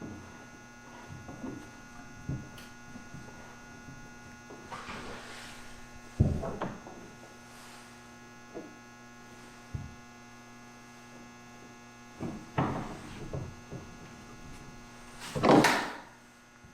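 Steady electrical hum under scattered knocks and scrapes of hand tools as bolts are tightened with a T-handle wrench, with a sharp knock about six seconds in and a louder clatter near the end.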